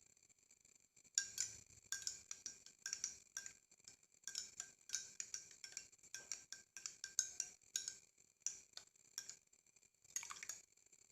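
A spoon stirring a drink in a glass, with quick, uneven clinks against the glass from about a second in until shortly before the end.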